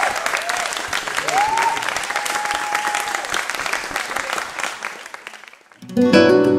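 Audience applauding, the clapping dying away over about five seconds, then an acoustic guitar starts strumming loudly near the end.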